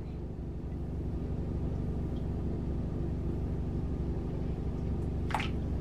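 Steady low machine hum with an even, droning tone throughout, and a brief rising squeak near the end.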